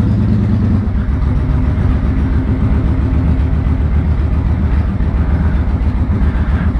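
Victory Hammer motorcycle's V-twin engine idling steadily through its louder aftermarket pipes; the idle dips slightly in pitch about a second in.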